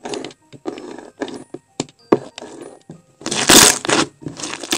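Thick white slime being cut with a pizza cutter and squished between the hands: a run of short wet noisy bursts with brief gaps, the loudest and longest about three seconds in.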